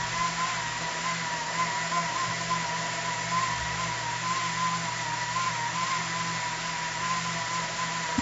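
Propeller motors of a 3-DOF helicopter lab rig running steadily: an electric motor whine with a slightly wavering pitch over a low hum and propeller air hiss.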